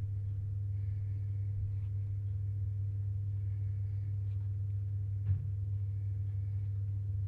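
Steady low hum with no speech, and one faint click about five seconds in.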